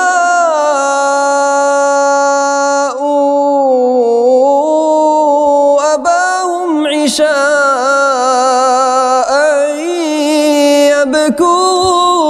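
A male voice chanting Qur'anic recitation in melodic tajwid style. It holds long, drawn-out notes whose pitch wavers and glides in ornamented runs, with short breaks between phrases.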